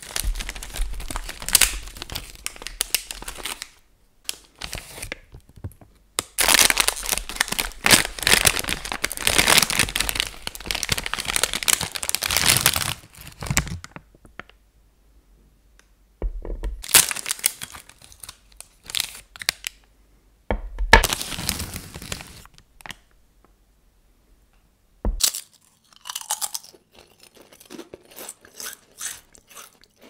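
Plastic ice cream wrappers crinkling and tearing open in several long bouts with quiet pauses between. A single sharp knock comes a few seconds before the end, followed by a few light crinkles and clicks.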